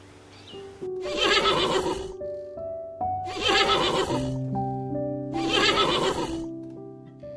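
Horse whinnying three times, each call about a second long, over soft piano music.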